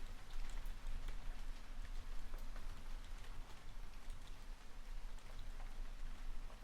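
Steady rain with scattered sharp ticks of individual drops or clicks throughout.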